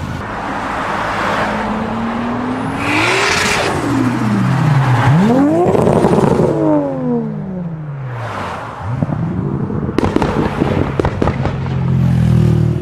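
Toyota Supra Mk4's 2JZ inline-six engine revving twice, the revs climbing and dropping each time. A run of sharp pops and crackles from the exhaust follows near the end.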